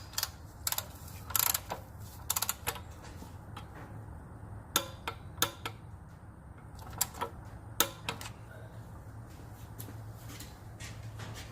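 Hand tools being worked on the car: short metallic ratchet-like clicks in scattered groups of one to three, over a steady low hum.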